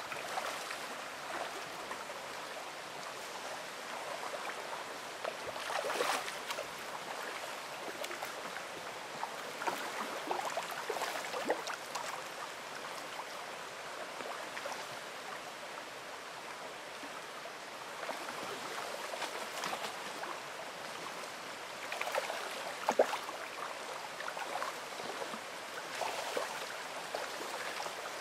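Shallow creek water running over stones in a steady rush, with a few brief louder splashes scattered through.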